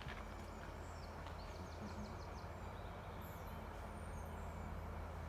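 Birds chirping in the trees, including a quick run of high chirps about a second in, over a faint steady low hum.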